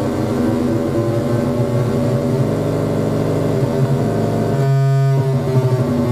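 Laboratory signal generator putting out harsh, buzzing electronic tones with many overtones over a low hum. The timbre shifts a couple of seconds in, and near the end the sound briefly narrows to a single steady low tone for about half a second before the buzz returns.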